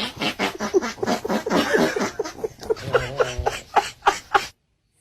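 A rapid run of short, pitched animal calls, several a second, cut off abruptly about four and a half seconds in.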